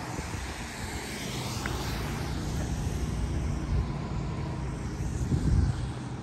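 Steady rumble of distant vehicle traffic, with wind buffeting the microphone and a stronger gust near the end.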